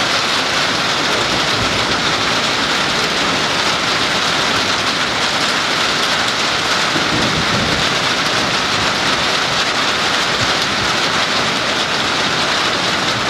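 Steady rain falling in a thunderstorm, with a low rumble of thunder about halfway through.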